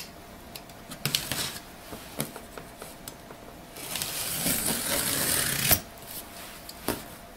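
A box cutter slitting the packing tape on a cardboard carton: a few light taps and scrapes, then one long cutting scrape along the tape of about two seconds a little past halfway, followed by a couple of clicks.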